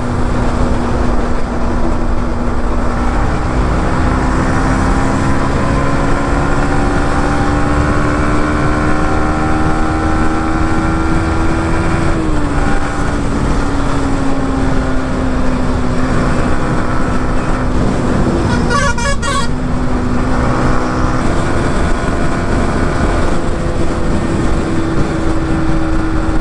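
Motorcycle engine pulling hard at highway speed under heavy wind noise on the microphone; its note climbs slowly, drops about halfway through and rises again near the end. A vehicle horn sounds briefly about two-thirds of the way in.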